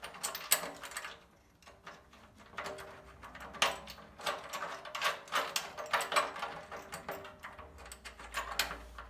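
Hand ratchet clicking in short strokes as nuts are run down onto the bolts of a steel steering-rack bracket, with a few metallic clinks of tool on bracket.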